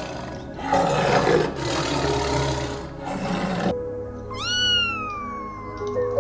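A rough, noisy animal sound cuts off abruptly after about three and a half seconds. A domestic cat then meows once, a long call that rises briefly and falls in pitch, over background music with steady held notes.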